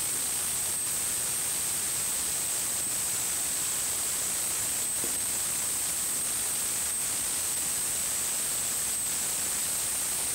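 Steady hiss with a thin, high-pitched whine held through it: the background noise of the recording, with no speech.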